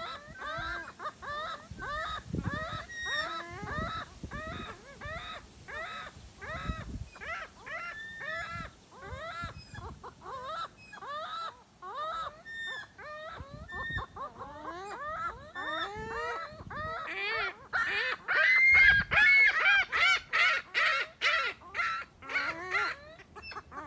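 Several seagulls calling over one another in a run of short squawks, a few a second. Near the end the calls grow louder and come faster for several seconds.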